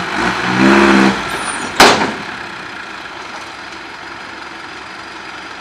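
Six-wheel dump truck's diesel engine revving for about half a second as the truck pulls forward from under its tipped load. A single sharp bang follows just under two seconds in, and then the engine runs on quietly.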